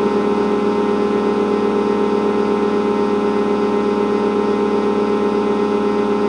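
Sustained electronic drone: a steady, buzzy chord of held tones that neither rises nor falls, with a fast, even flutter.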